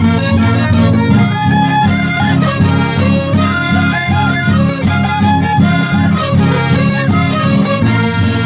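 Andean folk band music in an instrumental passage with no singing: a melody instrument plays a stepping tune over guitar and bass accompaniment.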